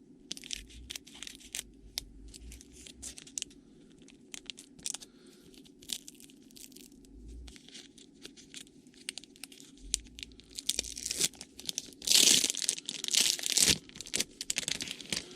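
Trading card pack wrapper being torn open and crinkled by hand: scattered crackles, with the loudest burst of tearing about twelve seconds in.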